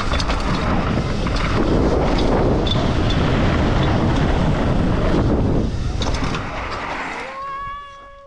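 Wind rushing over the microphone and mountain bike tyres skidding and rolling over loose, dusty dirt on a fast descent, fading after about five seconds. Near the end comes a steady held tone that cuts off sharply.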